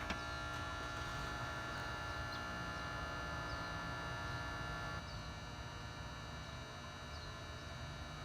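Steady low electrical hum, with a few faint high chirps; the hum drops slightly in level about halfway through.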